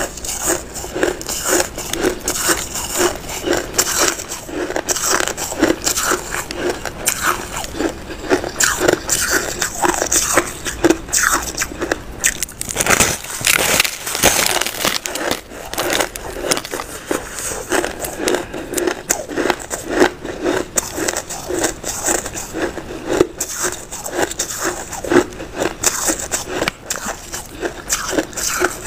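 Compacted white snow ice bitten and chewed, a steady run of crisp crunches, a few each second.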